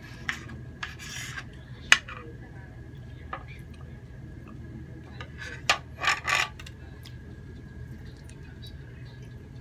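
Knife and fork cutting grilled squid on a ceramic plate: scattered scrapes and clinks of the metal on the plate, a sharp clink about two seconds in and a cluster of scrapes around six seconds in.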